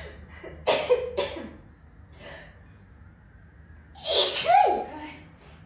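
A person sneezing in a quick series: two short sneezes about a second in, then a louder sneeze near the four-second mark, voiced with a falling pitch.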